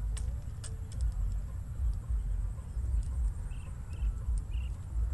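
Wind buffeting the microphone, a gusty low rumble that is the loudest sound throughout. Two sharp clicks come in the first second, and three short high chirps sound about three and a half seconds in.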